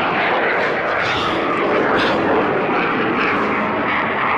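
Boom XB-1's three afterburning turbojet engines making a steady jet roar as the aircraft climbs away just after takeoff.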